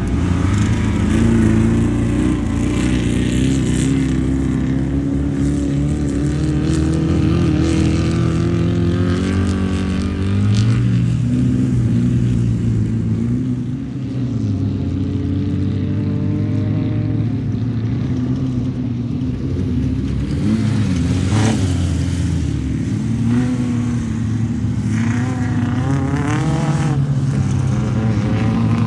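Off-road race car engines running and revving. The pitch rises and falls several times as the cars accelerate and pass, and more than one engine is heard at once at times.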